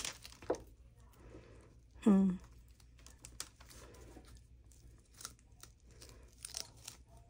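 Faint rustling and small clicks of gloved hands handling craft supplies on a tabletop, with a short falling vocal sound, a sigh-like 'hmm', about two seconds in that is the loudest thing.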